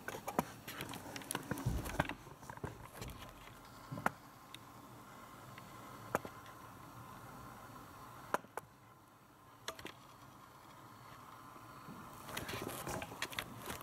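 Rustling and scattered sharp clicks and knocks, busiest in the first couple of seconds and again near the end, from a long-haired dog nosing and brushing its face and fur against the camera.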